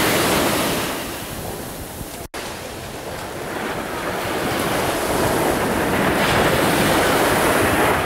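Black Sea waves breaking and washing up the shore, with wind buffeting the microphone. The sound cuts out for an instant about two seconds in, and the surf grows louder after that.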